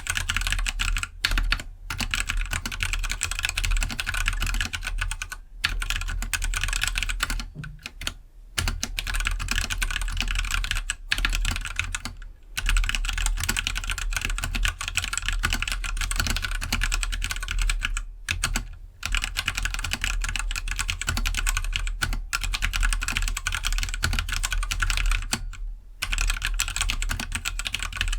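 Fast, continuous typing on a Keydous NJ68 65% mechanical keyboard with stock Gateron Black linear switches, a dense run of keystroke clacks broken by a few brief pauses.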